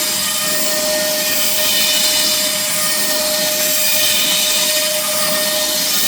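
PrintNC CNC router spindle running an 8 mm cutter through marine plywood: a steady whine over a constant cutting hiss.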